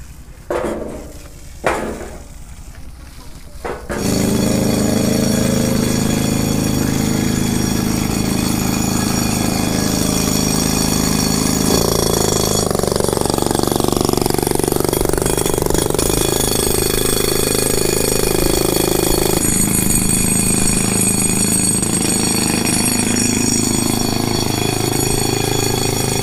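A powered hammer drill starts suddenly about four seconds in and runs steadily, a fast rapid hammering, its tone shifting a couple of times.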